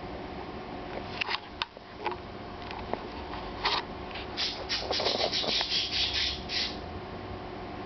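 A puppy scratching and pawing at the plush fabric of its pet bed, nesting to settle down for a nap: a few single scratches, then a quick run of scratching strokes from about four and a half to six and a half seconds in.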